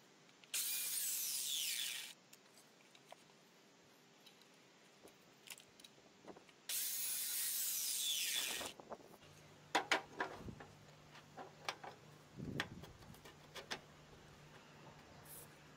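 Evolution mitre saw cutting through a softwood pallet slat twice, each cut lasting about a second and a half. Later come scattered knocks and clicks of the cut wood being handled.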